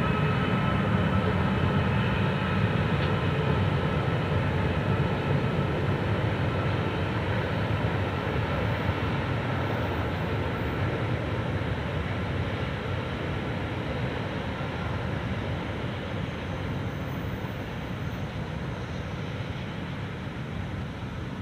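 Pacific National NR class diesel-electric locomotives working hard at the head of a container train: a steady deep engine rumble that slowly fades.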